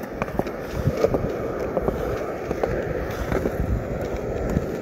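Skateboard wheels rolling on concrete: a steady rumble with scattered small clicks and knocks.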